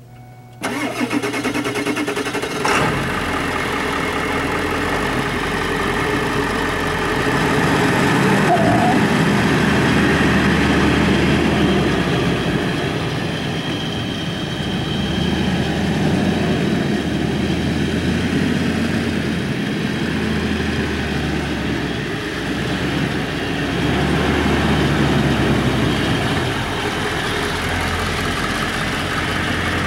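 1999 Ford F-350's 7.3-litre Power Stroke turbo-diesel V8 running as the dump truck is driven across a field and back. It comes in sharply about half a second in, and its loudness rises and falls. There is a single sharp knock a couple of seconds after it comes in.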